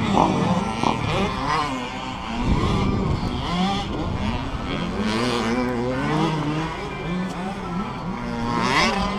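Several dirt bike engines revving, their pitch repeatedly climbing and dropping and overlapping one another.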